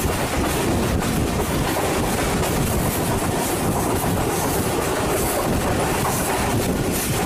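Pakistan Railways railcar running at speed, heard from on board: a steady, loud noise of wheels on the track.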